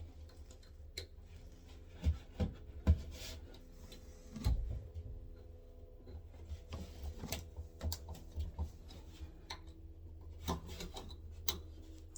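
Scattered light clicks, knocks and rubbing from handling things at close range, a few sharper knocks among them, over a low steady hum.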